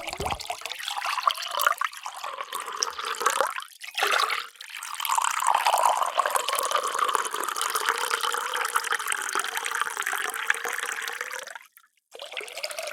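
Water pouring steadily into a container, with a short break a few seconds in; the pour stops abruptly about a second before the end and another pour starts right after.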